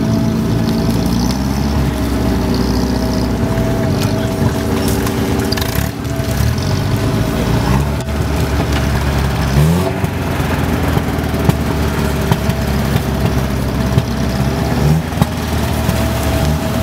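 Off-road 4x4 engines running steadily, with short revs rising in pitch about halfway through and again near the end.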